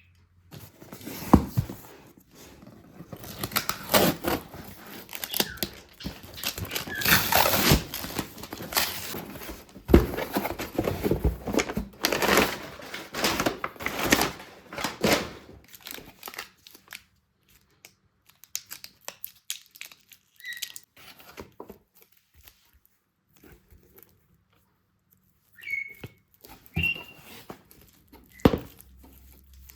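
Packaging being crinkled and rustled in bursts for about fifteen seconds, then a few scattered taps and short high squeaks.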